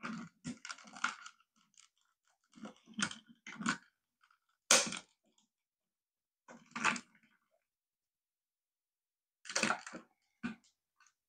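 Plastic parts of a toy robot being levered apart: short bursts of crunching and cracking in about five groups, the sharpest crack about five seconds in.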